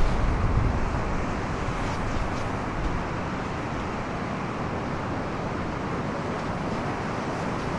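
Steady wash of ocean surf breaking on a rock shelf, with a low rumble of wind on the microphone.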